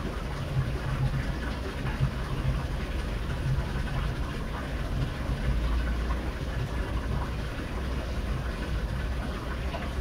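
A thin stream of water pouring from a spout onto a small wooden waterwheel in a rock-wall fountain, splashing steadily over a low, uneven rumble.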